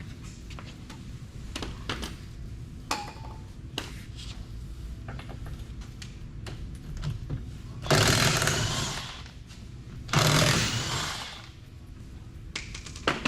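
Impact wrench run in two bursts of about a second and a half each, driving UTV lug nuts tight, with light metal clinks of tools and nuts before them.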